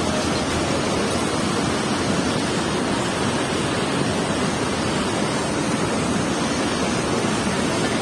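Waterfall and whitewater pouring over boulders close by: a steady, even rush of water.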